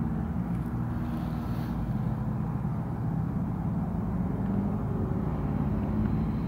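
Steady low hum of motor traffic.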